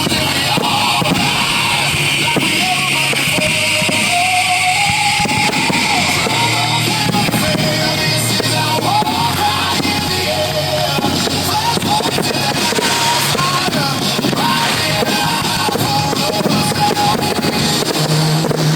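Loud rock music with a drum kit and electric guitar playing a melody line, in an instrumental passage between sung verses.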